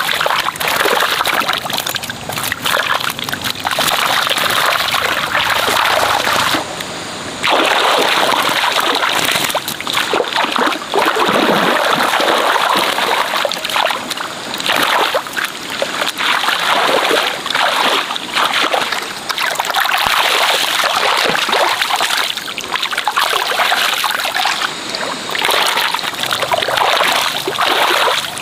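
Muddy water splashing and sloshing as a long-handled hand net is swept and scooped through it, in irregular strokes with a brief lull about seven seconds in.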